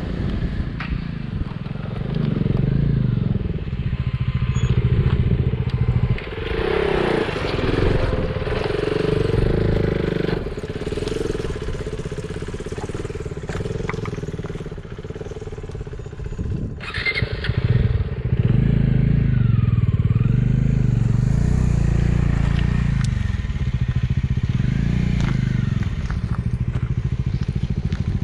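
Motorcycle engine running on a rough off-road trail, the revs rising and falling, with a sharp knock about seventeen seconds in.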